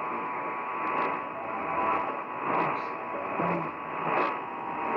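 Steady hiss and static from an AM radio receiver, narrow in tone, with faint swells in the noise.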